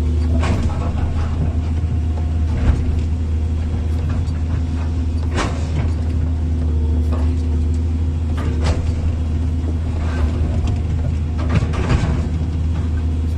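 Excavator's diesel engine running steadily, with a deep hum and a handful of sharp clanks spread through it.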